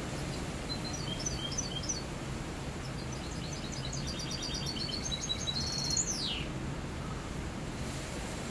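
Caged mixto, a hybrid of a canary and a wild finch, singing: a short phrase of high twittering notes about a second in, then a longer run of rapid trills from about three seconds that ends in a quick falling sweep. A steady low background rumble runs underneath.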